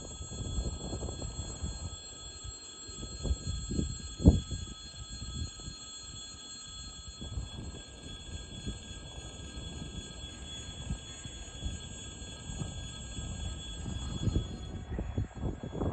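Wind buffeting the microphone in low gusts, under a steady high ringing from a railway level-crossing warning bell that fades near the end. A single sharp thump about four seconds in.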